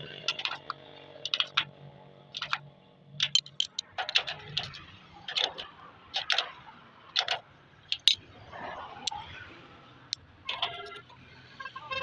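Irregular metallic clicks and taps, about a dozen strikes at uneven spacing, some with a brief ring: hand tools knocking and clinking on metal machine parts during a repair, over a faint low hum.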